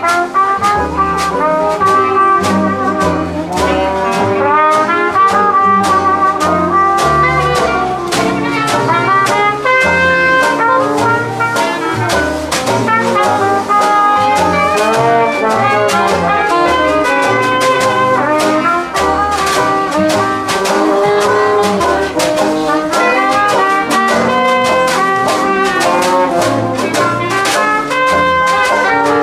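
Live brass band playing an upbeat jazz number, with trumpet and trombone over walking bass notes and a steady drum beat. The band strikes up right at the start, just after applause.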